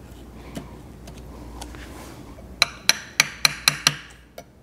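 About six quick, ringing taps of a hammer on a metal punch, roughly four a second, seating the C-clip of the clutch push rod assembly on a Suzuki Bandit 1200 clutch. A few faint metal clicks come before them.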